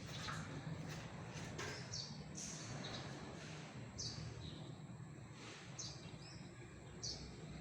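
A bird chirping in short, repeated calls about every second and a half, over a steady low hum.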